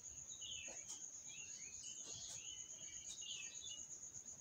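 A cricket trilling steadily at a high pitch, faint, with the light scratching of a pen writing on paper.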